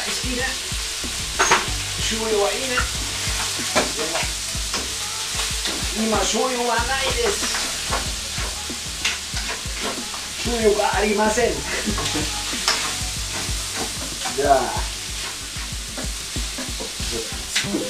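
Diced chicken and onions sizzling in hot coconut oil in a wok, stirred and scraped with a wooden spatula, with frequent short knocks and scrapes of the spatula against the pan over a steady sizzle.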